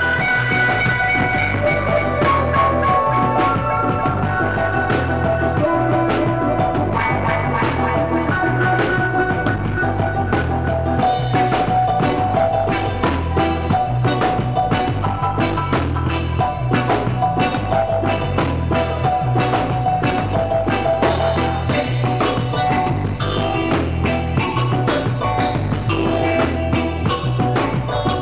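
Live reggae-dub band playing: electric guitar, keyboard and drum kit over a strong bass line, with a steady beat.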